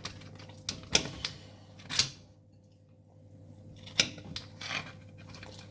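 Scattered clicks and knocks of kitchen utensils and dishes being handled, a few sharp strikes spread out with a short near-silent pause between them.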